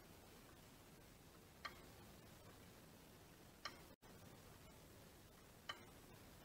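Synchronome master clock ticking faintly: three sharp clicks about two seconds apart, the pendulum's pawl stepping the count wheel on one tooth every other swing. A brief dropout cuts the audio about a second after the second click.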